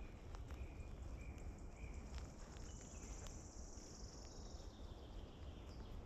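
Small forest songbirds chirping faintly in short high notes, with a thin, high trill lasting about two seconds in the middle. Underneath is a steady low rumble and a few short ticks.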